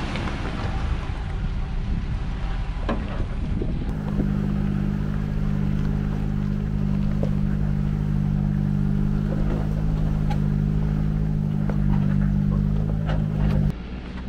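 Jeep Gladiator Rubicon crawling slowly over rock, its engine running at low speed, with scattered knocks and clicks from the tyres and chassis on the rock. About four seconds in, a steady low engine hum comes up strongly and holds, then cuts off suddenly shortly before the end.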